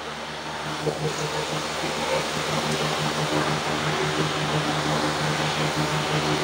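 Electric fan running: a steady hum under an even rush of air.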